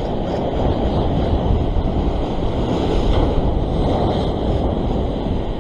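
Steady wind noise buffeting the microphone, mixed with surf washing against the sea rocks.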